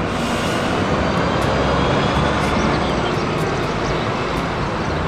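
Steady, loud engine-like rushing noise, like a vehicle or aircraft running, with no clear rhythm or change.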